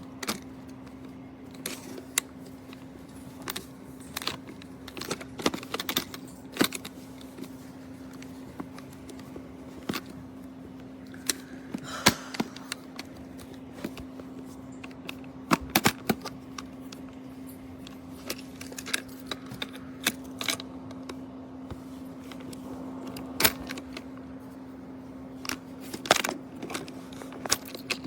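Irregular clicks and knocks of a small portable combination lock box being handled, over a steady hum.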